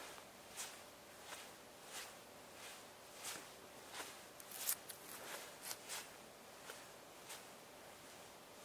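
Faint footsteps on dry grass, soft crunches at about one and a half steps a second.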